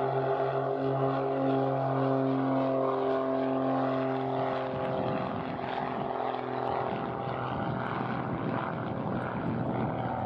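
Light twin-engine propeller plane at takeoff power on its takeoff roll, its two engines droning with a slow pulsing beat between them. About halfway through, the even hum turns rougher and noisier.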